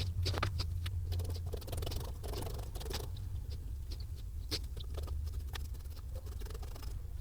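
Scattered small clicks, taps and scrapes of hands handling tools and parts while working on a motorcycle fairing, over a steady low hum.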